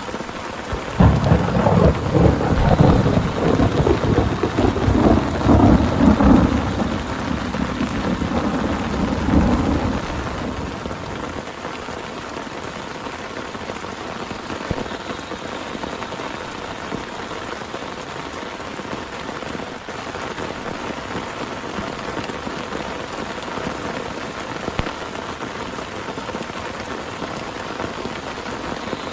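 Thunder rolls in about a second in, rumbling loudly for several seconds and dying away by about ten seconds in, over steady heavy rain.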